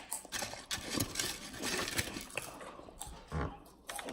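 Irregular crunchy crackling from chips being chewed and handled, with a short low thump a little past three seconds in.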